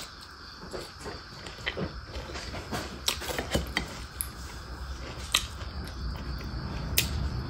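Close-miked eating by hand: chewing with scattered sharp, wet mouth clicks, and fingers working rice on a plate, over a faint steady low hum.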